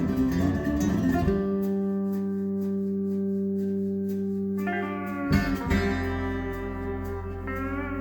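Recorded guitar music played back over hi-fi speakers: quick picked notes at first, then long sustained notes ringing out, with a new section starting about five seconds in.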